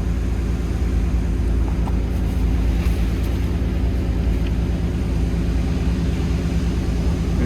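Excavator's diesel engine running steadily at a constant speed.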